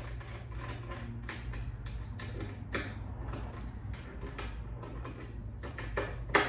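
Irregular small metal clicks and scrapes of motorcycle docking hardware being handled and fitted onto a mounting bolt, with a sharper clack near the end. A steady low hum runs underneath.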